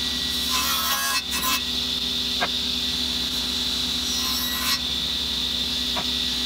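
Sliding table saw running steadily, its blade set to half the board's thickness, cutting into a wooden board to take away half for a 45-degree half-lap joint. The blade bites in with a rasping cut about half a second in and again around four seconds, with small clicks between.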